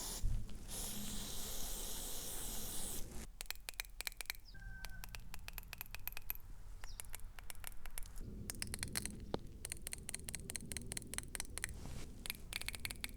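A spray hiss for the first three seconds, then a rapid, irregular run of sharp clicks as the BMW E39 VANOS solenoids are switched on and off with a 9-volt battery. After cleaning they are clicking again, a sign that the sticky solenoids are coming back to life.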